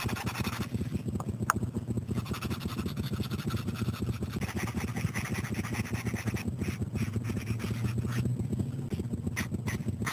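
Felt-tip marker scratching across sketchpad paper in drawn strokes, with a few sharp clicks near the end. Under it runs a steady low hum.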